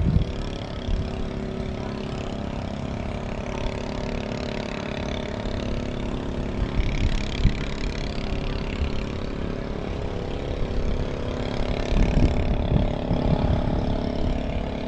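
A steady engine-like hum holding several fixed low tones, over a rumbling low end.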